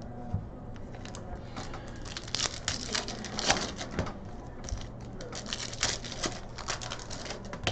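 Foil trading-card packs being torn open and the cards handled: a run of irregular crinkling and ripping rustles starting about a second in, over a steady low hum.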